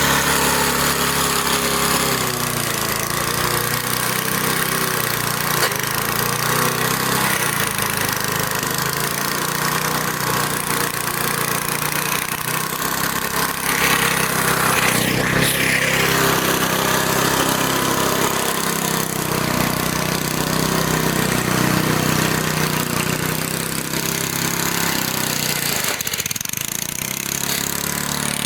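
Briggs and Stratton lawn mower engine running, its speed shifting up and down now and then because its governor is broken.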